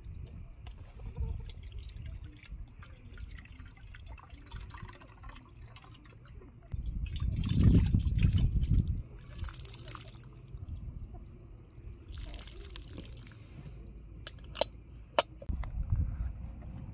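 Water poured in a thin stream from a metal teapot into an aluminium bowl, splashing and dripping. It is loudest about halfway through, and a couple of sharp clinks come near the end.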